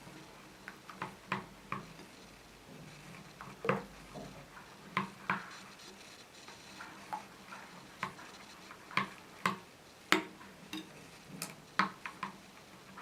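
A spoon stirring a banana, honey and water mixture, clicking and clinking against the side of its container at irregular intervals.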